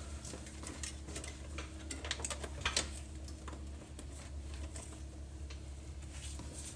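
Scattered light clicks and taps of gloved hands working on the clutch and engine back plate under a car, with a few sharper ticks partway through, over a steady low hum.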